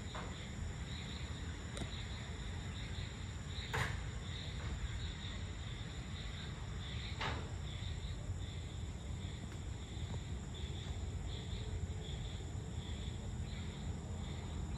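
Evening insect chorus: crickets chirping in a steady pulsing trill, with a constant high drone above it and a steady low rumble beneath. Two short sharp sounds stand out, about 4 and 7 seconds in.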